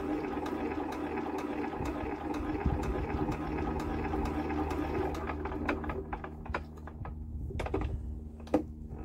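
Old Lister diesel engine being turned over with the decompressor lifted: a steady mechanical whirr with a run of sharp ticks. It is being motored to prime the freshly cleaned injector until it starts to click.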